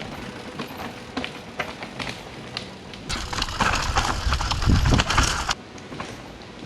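Mountain bike riding over a rocky trail: scattered clicks and rattles with tyre noise on rock and dirt, swelling louder for a couple of seconds in the middle, then cutting off suddenly.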